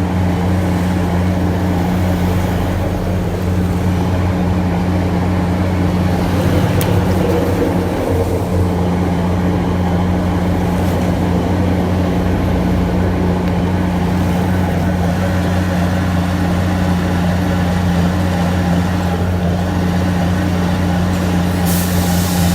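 Heavy engine running steadily with a constant low drone that holds unchanged throughout.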